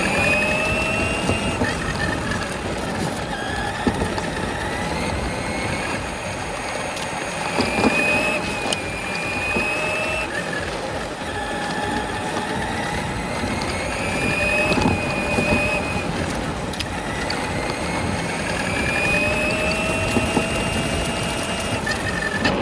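Electric drive motor and gears of a 20-volt battery RC monster truck whining, the pitch rising and falling again and again with the throttle, over a steady rush and rattle of tyres and chassis on rough ground. There are a few sharp knocks, and it is heard close up from a camera mounted on the truck.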